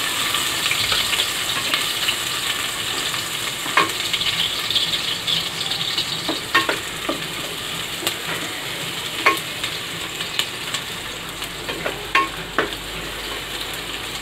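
Sliced onions sizzling in hot oil in an aluminium pressure cooker, stirred with a wooden spoon that knocks against the pot now and then.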